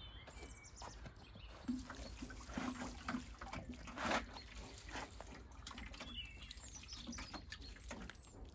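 Water from a watering can pattering onto soil and the leaves of young pea plants, with birds chirping faintly in the background.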